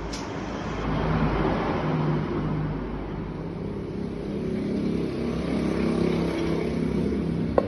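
A motor vehicle engine running steadily, a little louder from about a second in.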